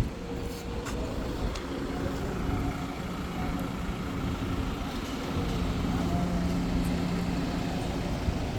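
An engine running steadily, its hum growing a little stronger about five seconds in, with a couple of short knocks early on.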